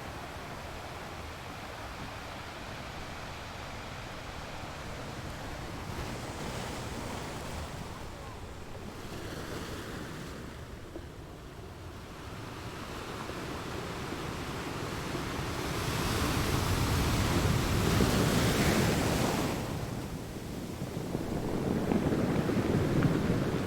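Ocean surf: waves breaking and washing in, swelling and ebbing, with the loudest waves coming in about two-thirds of the way through and again near the end.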